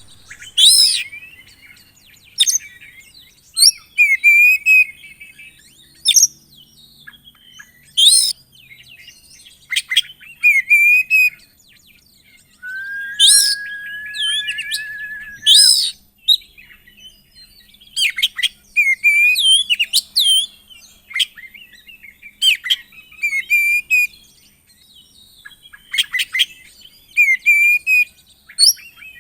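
Oriental magpie-robin (kacer) singing: loud, sharp whistled notes and chattering phrases repeated every second or two, with one long even trill about halfway through.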